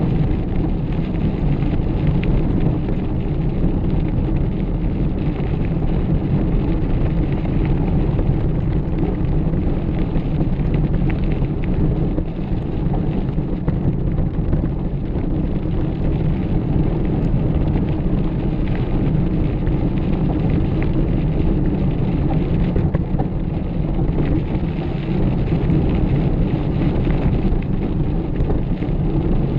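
Mountain bike riding over a dirt track: a loud, steady rumble of wind on the microphone and tyres on the ground, with small crackles and rattles scattered through it.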